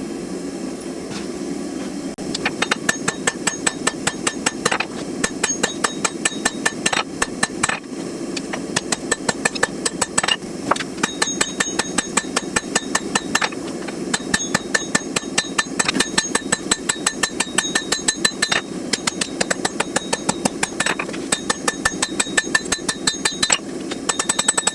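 Hand hammer striking hot steel on an anvil in quick, regular blows, with a high ring on each strike, drawing out a knife blank to lengthen it. The hammering starts about two seconds in and comes in runs with brief pauses, over a steady low hum.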